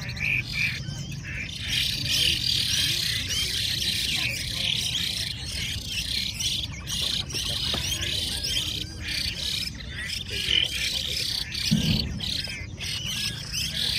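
Many caged Chinese hwamei singing at once: a dense, overlapping chorus of loud whistled phrases and chirps, over a steady low background murmur.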